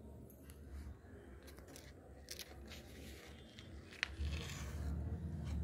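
Paper brochure being handled and shifted, with light scrapes and clicks, a sharp click about four seconds in, then low rumbling handling noise.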